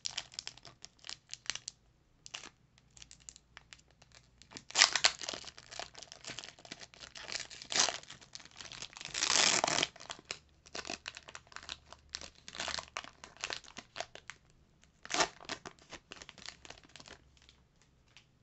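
Foil Pokémon booster pack wrapper being torn open and crinkled by hand: an irregular run of crinkles and crackles, with a longer tear about halfway through.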